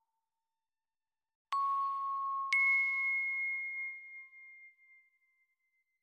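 Two bell-like dings from a horror sound effect: a lower one about a second and a half in, then a higher one a second later. Each rings on and slowly fades away.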